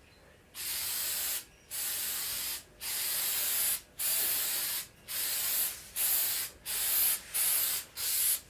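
Aerosol spray can spraying a touch-up coat in about nine hissing bursts, each around a second long at first, getting shorter toward the end.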